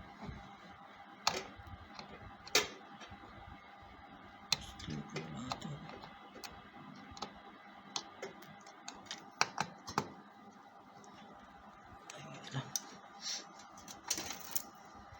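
Irregular sharp clicks and taps of small plastic cable connectors and leads being handled and fitted inside a PC case, over a faint steady hum.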